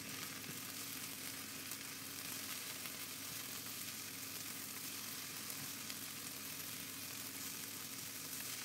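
Sliced okra with garlic and onion sizzling steadily and faintly in hot oil in a nonstick frying pan while a spatula stirs it, with soft scrapes of the stirring.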